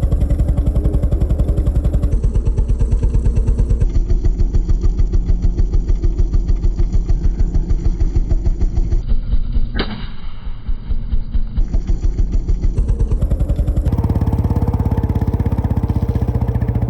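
Royal Enfield Bullet's single-cylinder engine running with its fast, evenly spaced thump, with one sharp pop about ten seconds in. It runs more smoothly in the last few seconds.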